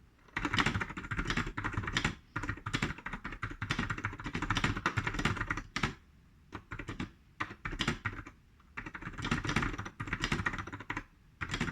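Typing on a vintage Panasonic keyboard with Mitsumi KCT-2 (Standard Mechanical Type 2) tactile switches, unlubed and unmodified: fast runs of keystroke clicks broken by short pauses. These switches have a horizontal underslung spring that gives the tactile bump.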